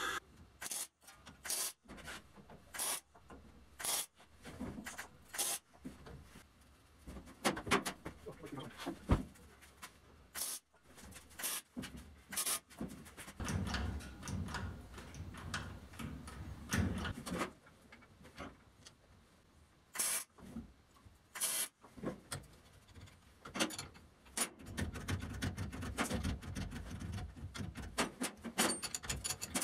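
Workshop handling noise: irregular clicks, knocks and rubbing of metal parts and tools being worked by hand, with longer scraping stretches in the middle and near the end.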